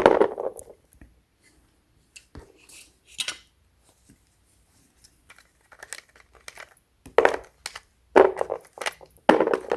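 Small hard plastic and metal mounting parts of a car headrest being handled, clicking and clattering in short scattered knocks, with a few louder clacks in the last few seconds.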